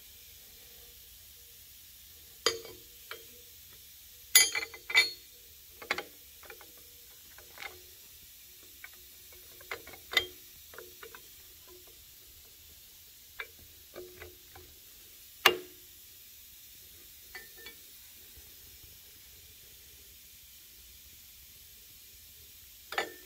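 Aluminium adapter plate knocking and clinking against an outboard's lower unit housing as it is set down, shifted and lifted off by hand. The knocks come at irregular intervals, a few with a brief metallic ring; the loudest are about four and a half and fifteen and a half seconds in.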